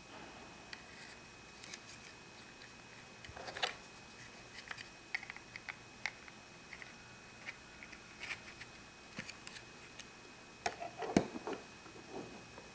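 Irregular small plastic clicks, taps and scrapes from a plastic Minnie Mouse Pocket Lock-It fold-open playset being handled and its hinged panels folded out, with louder knocks about three and a half seconds in and again near the end as it is set down.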